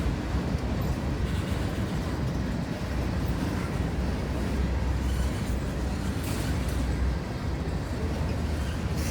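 Norfolk Southern freight train rolling past, a steady low rumble with no clear rhythm of wheel clicks.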